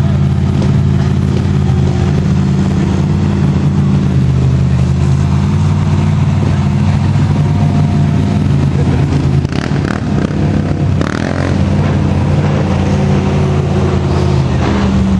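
Mud truck engine running at steady revs, a deep continuous drone that dips briefly about ten seconds in.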